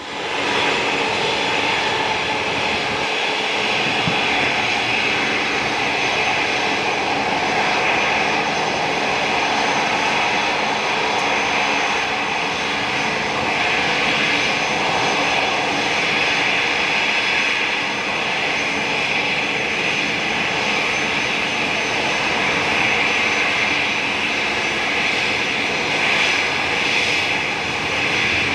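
Jet engines of a Boeing 787-9 Dreamliner running at a steady level: a hiss with several steady whining tones over it.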